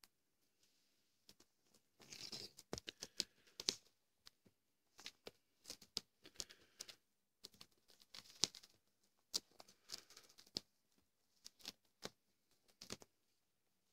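Maine Coon cat biting and clawing a catnip sack: faint irregular crinkling and rustling with many sharp clicks, starting about two seconds in.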